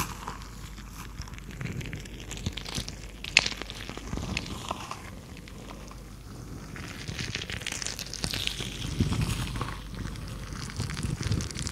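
Stress balls filled with gel water beads squeezed and kneaded by hand, giving irregular squishing and crackling, with one sharp click about three and a half seconds in.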